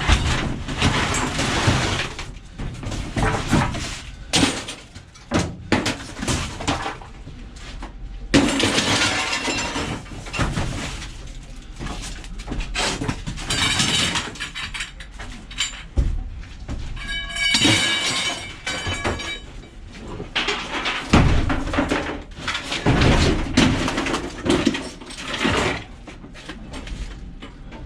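A scrap appliance being smashed apart by hand, with repeated blows, crashes and breaking clatter, and brief squealing sounds near the middle.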